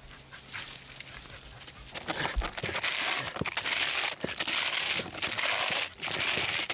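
A squirrel dog clawing and chewing at a dead tree where a squirrel is holed up: dense crackling and crunching of bark and wood that starts about two seconds in.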